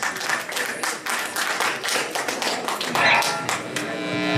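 Fast run of sharp percussive taps, several a second. Near the end, a guitar chord starts ringing over them.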